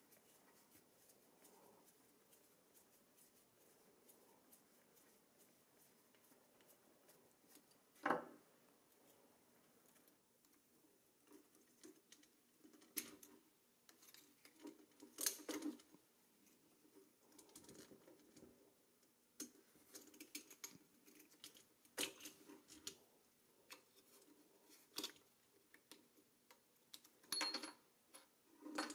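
Faint scraping and small metallic clicks of a screwdriver working at the rusty axle end and hub cap of a pressed-steel toy car wheel. There is one sharp click about eight seconds in, then a busier run of clicks and scrapes as the hub cap is pried loose.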